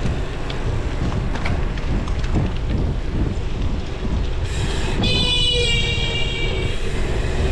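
Wind buffeting the microphone over the rumble of a gravel bike's tyres rolling on pavement. About five seconds in, a high, buzzy tone with many overtones sounds for about a second and a half.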